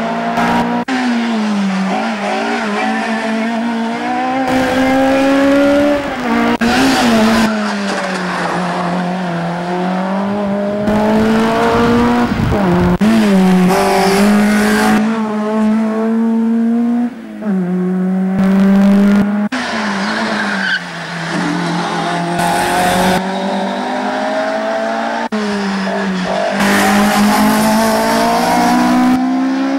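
Racing car engines in the 1400–3000 cc hill-climb class running hard up the course, one car after another. Each engine's pitch climbs through a gear and then drops at the shift or the corner, over and over.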